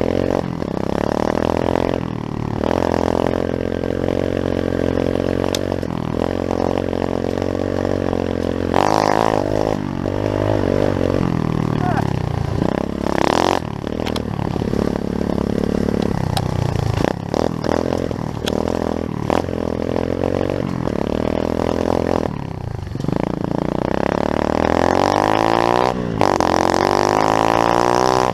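Pit bike engine running, its revs rising and falling repeatedly with brief drops between.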